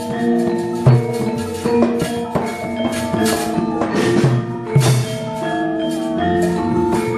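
Javanese gamelan playing a brisk piece: bronze metallophones ring out a run of notes over heavy gamelan drum strokes, punctuated by sharp, frequent clacks of the dalang's keprak and dodogan knocks marking the puppets' fight.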